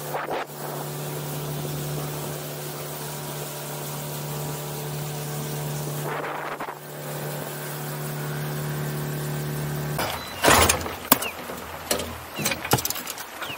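Small outboard motor on an aluminium fishing boat running at a steady pitch, stopping about ten seconds in. Then a series of sharp knocks and clatter from gear in the boat.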